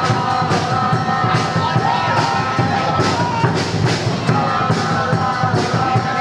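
Background music with a steady beat and held synth-like notes.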